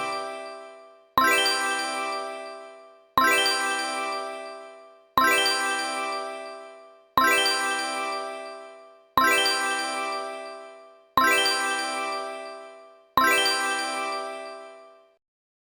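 A bell-like ding sound effect, struck seven times at an even pace of one every two seconds, each note ringing and fading away before the next.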